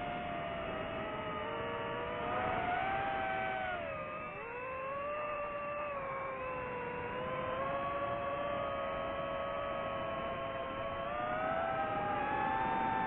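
DJI FPV quadcopter's motors and propellers whining in flight, heard from on board: several tones slide up and down together with the throttle. The pitch dips about four seconds in and climbs again near the end.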